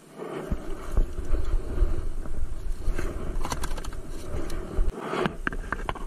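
Wind rumbling on the microphone, with a few sharp clicks and knocks from handling a plastic cooler and its lid. The rumble drops away about five seconds in, and a cluster of clicks follows.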